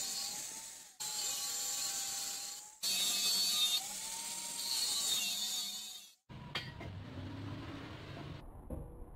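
Angle grinder with a cutting disc cutting through 5 mm-thick hollow steel tube: a harsh, hissing grind over the motor's whine, which wavers in pitch as the disc is loaded, breaking off and resuming abruptly twice. After about six seconds the grinding stops, leaving a quieter low rumble and a few sharp knocks.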